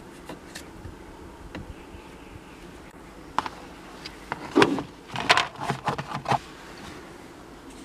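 Handling noises from a rubber timing belt and a cardboard box being put down and the belt spread out by hand on a rubber floor mat. They come as a cluster of short knocks and rustles a few seconds in, over a faint steady hum.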